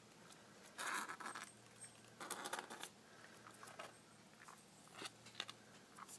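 Hamster's claws scrabbling and pattering on a hard floor: faint, short scratchy bursts, about half a dozen spread over several seconds.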